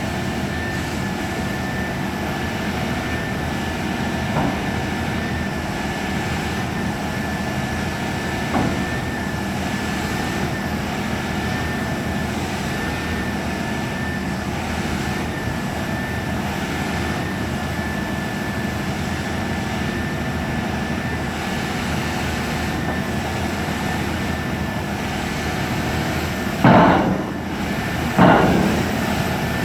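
Caterpillar excavator's diesel engine running steadily, with a high whine held on one pitch. Two short loud bursts of noise come near the end.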